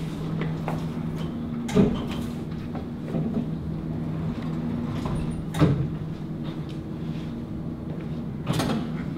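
Curved glass sliding doors of a contamination-monitoring personnel lock opening and closing as people pass through one at a time, with three thuds about two, five and a half and eight and a half seconds in, over a steady low hum.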